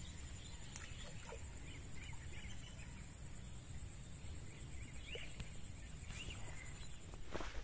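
Quiet waterside ambience: a low wind rumble, a steady high hiss, and a few faint short bird chirps. A single knock comes near the end.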